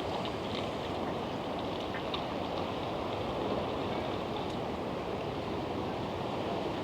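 Rough sea surf: a steady, even rush of water noise with no single wave crash standing out.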